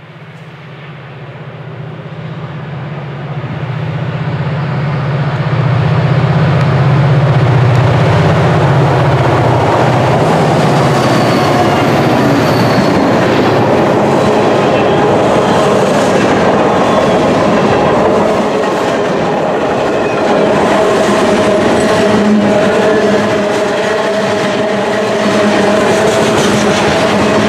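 Two EMD GP40-2LW diesel locomotives approaching and passing, their turbocharged two-stroke engines giving a low drone that grows louder over the first several seconds and fades after about ten seconds. Then a steady noise of freight car wheels rolling on the rails as lumber cars and tank cars go by.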